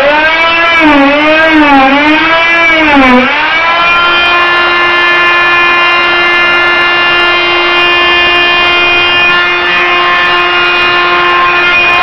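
Hyper Tough oscillating multi-tool with a scraper blade, run at top speed while scraping up old linoleum flooring. Its high whine wobbles up and down in pitch for about the first three seconds, dips, and then holds at one steady pitch for the rest.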